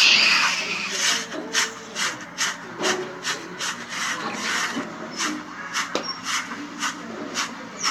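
Slime being squeezed and worked by hand, a squishing sound repeated about two to three times a second.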